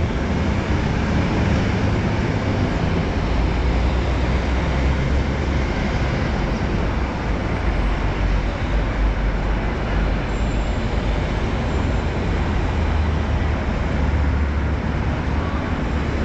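Busy city street traffic: a steady low rumble of buses and cars passing, with no single event standing out.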